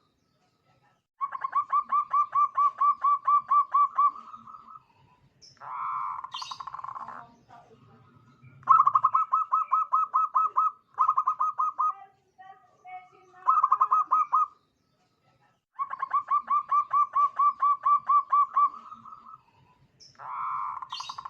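Zebra dove (perkutut) singing: repeated phrases of quick, even cooing notes, about five a second. Two shorter, rougher notes come between the phrases.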